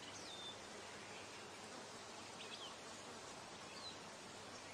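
Faint steady summer meadow ambience with a few brief, distant bird chirps, heard three times.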